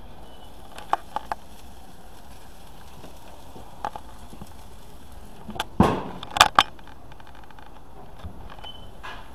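A few sharp clicks and knocks over a steady hiss, with a quick cluster of louder knocks about six seconds in.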